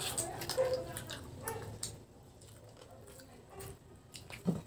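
Close-up eating sounds: wet chewing and lip smacks heard as many small clicks, with a short low vocal sound about four and a half seconds in.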